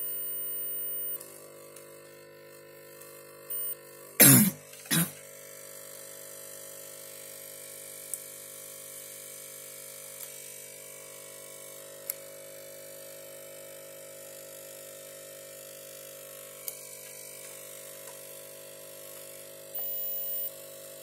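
Digital multimeter in continuity mode beeping as its probes touch a VRM MOSFET's pins: a steady high beep of about a second at the start, a short one a few seconds in, and another near the end. The beep shows continuity between the MOSFET's source and drain. Two loud knocks about four and five seconds in, over a steady low hum.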